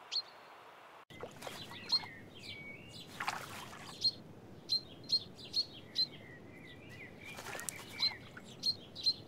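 Short, sharp bird call notes repeated about a dozen times, with a few softer falling whistles, while a male common chaffinch bathes in shallow water. Two brief splashing bursts come about three and seven and a half seconds in.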